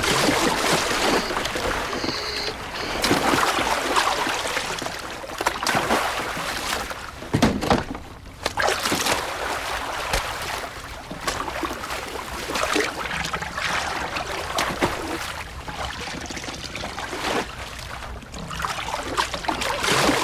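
Sea water splashing and sloshing at the side of a small boat, in uneven surges, as hands reach into the water to grab a body floating alongside.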